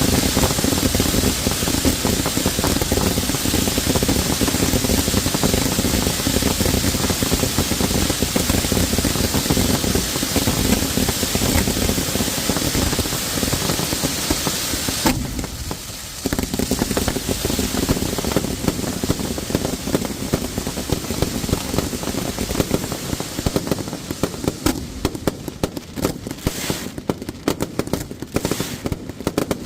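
Fireworks going off at close range in a dense, continuous barrage of bangs and crackles. There is a brief lull about halfway through, and near the end it thins into separate bangs.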